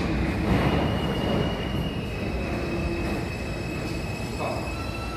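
New York City Subway G train at the platform, its wheels squealing in a steady high tone over a low rumble.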